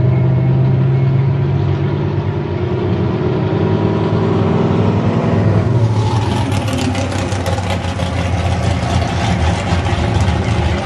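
Engine with a loud aftermarket exhaust idling at a drag strip, a steady deep rumble. About six seconds in, a harsher, hissing, crackling noise joins it and carries on.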